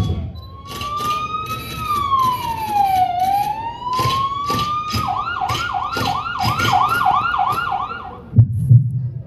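Recorded police-style siren sound effect in the dance soundtrack played over loudspeakers: a slow wail that rises, falls and rises again, switching about five seconds in to a fast yelp of about four cycles a second, over a regular clicking beat. Near the end it stops and a low pulsing beat begins.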